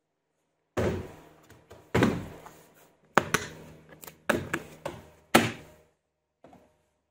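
A string of hard plastic knocks and clacks, about eight over five seconds and starting about a second in: a plastic tool carry case being handled, its snap latches flipped open and its lid lifted.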